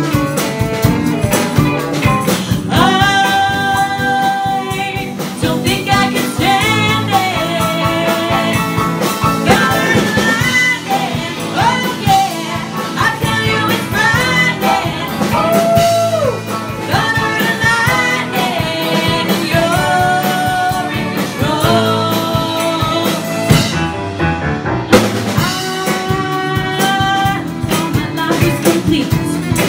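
Live band playing a pop-rock song: women singing long held notes over drum kit, guitars and keyboard.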